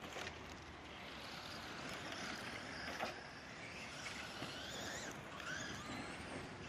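Electric motors and drivetrains of Traxxas RC trucks whining, rising and falling in pitch as they speed up and slow down on dirt. A short knock about three seconds in fits a truck landing a jump.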